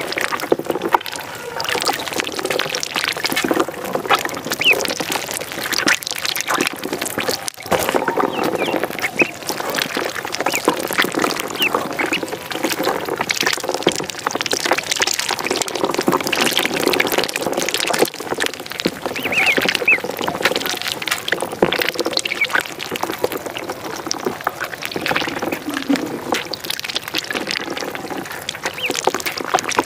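A tubful of ducklings peeping constantly as they paddle and dabble in shallow water, with continuous light splashing.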